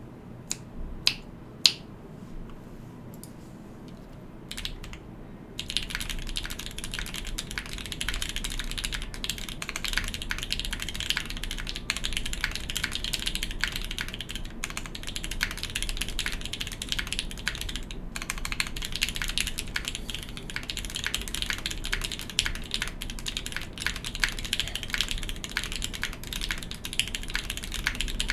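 Typing on a GEONWORKS F1-8X mechanical keyboard with spring- and stem-lubed R1 Okomochi switches and GMK keycaps. A few separate key presses come first, then from about five seconds in there is steady rapid typing.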